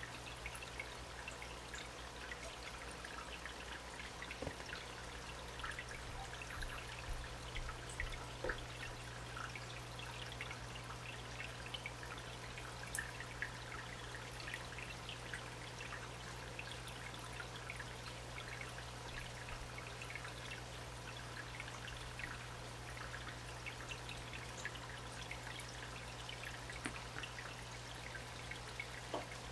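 Aquarium water trickling and bubbling steadily, with many small pops and drips, over a steady low hum.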